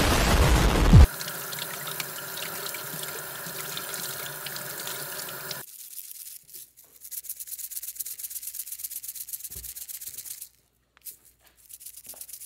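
A loud explosion sound effect lasting about a second, then a few seconds of steady hiss. Then a spice shaker bottle shaken rapidly over duck breasts, seasoning rattling out in quick, even shakes, in one long run and a shorter one near the end.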